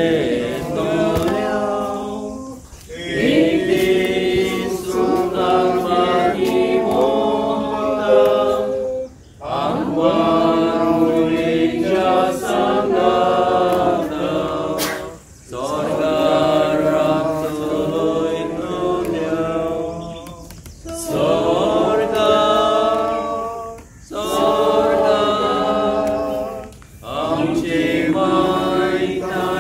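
Voices singing a hymn unaccompanied, in phrases of about three to six seconds each with short breaks for breath between them.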